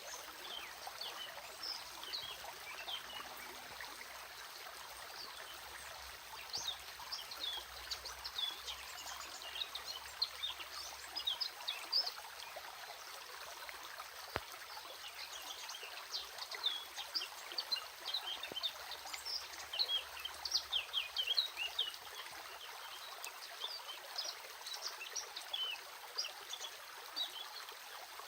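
Stream water running and trickling steadily, with many short high-pitched notes scattered over it, busiest around the middle and in the latter part.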